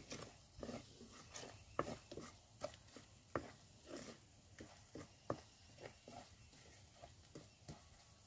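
A spoon stirring and scraping food in a pot over a wood fire: irregular light taps and scrapes, about one or two a second, over a faint hiss.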